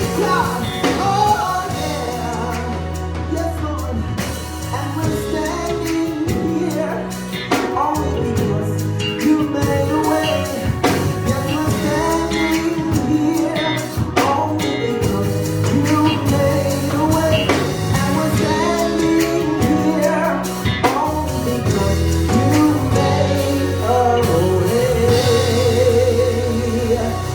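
Gospel worship song with singing over a live band, bass notes and drums keeping a steady beat.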